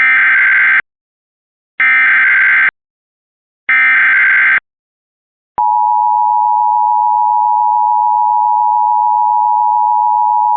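Emergency Alert System SAME header: three short bursts of warbling digital data tones, each just under a second long and about a second apart. About five and a half seconds in, the steady two-tone EAS attention signal starts, marking the start of an emergency alert broadcast.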